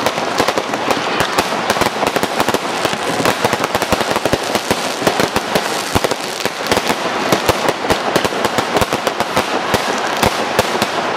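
Aerial fireworks going off in quick succession: a dense, unbroken rattle of sharp cracks and pops with no pause.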